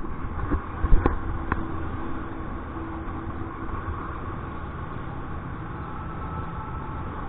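Wind rushing and buffeting on the microphone in flight under a paraglider, a steady low rumble with a couple of short knocks about a second in.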